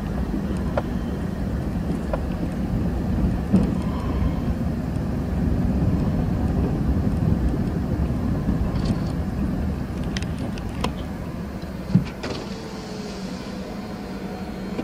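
Car rolling slowly over an unpaved dirt road, heard from inside the cabin: a steady low rumble of engine and tyres, with a few knocks and rattles, the sharpest about twelve seconds in.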